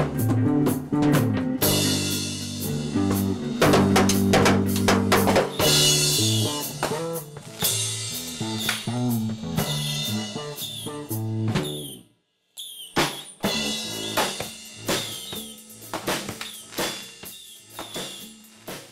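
Rock band music: a drum kit with snare and bass drum under bass and electric guitar notes. The music cuts out suddenly for a moment about twelve seconds in, then resumes more sparsely.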